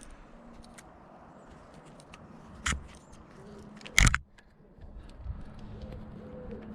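Tools and parts being handled: small clicks and two knocks, the louder one about four seconds in, over a faint low hum.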